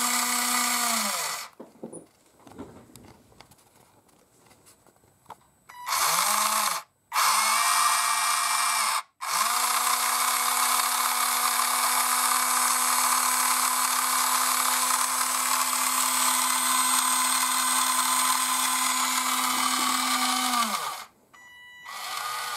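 Small electric lift motor of a converted AMEWI RC forklift driving the fork mast, with a steady whine that winds up at each start and down at each stop. It runs in several stretches: briefly at the start, twice more in short runs, then for about twelve seconds.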